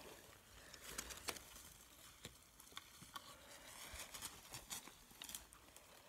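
Faint scattered rustling and crackling of grass and forest-floor plants being brushed through, with light irregular clicks.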